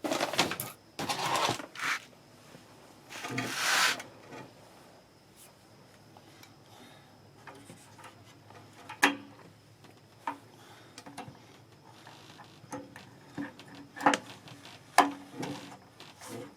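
Wrench being worked against metal fittings on an electric water heater. There are scraping and rubbing stretches in the first four seconds, then scattered sharp metal clicks and clanks.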